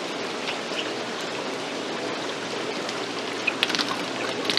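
Steady splashing of water running through live seafood tanks, with a few faint clicks near the end.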